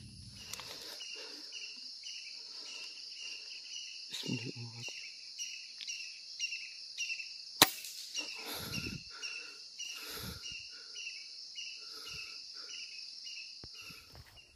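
A single sharp air-rifle shot about halfway through, followed by a few low thuds. Steady insect chirping runs underneath, with an even beat of about two short chirps a second.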